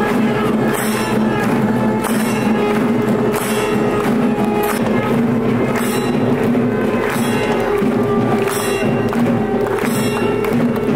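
Temple aarti music: a steady held drone with metallic percussion clashing in a regular beat.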